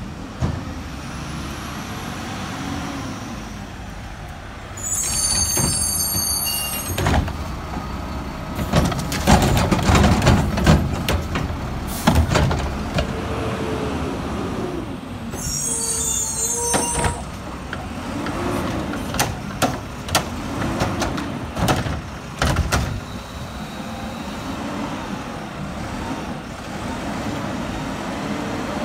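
Mack front-loader garbage truck's diesel engine running, with an air-brake hiss about five seconds in and another around sixteen seconds. A run of clanks and bangs comes from about eight to twelve seconds in, and in the second half the engine revs up and down in waves as the front arms lift the container over the cab.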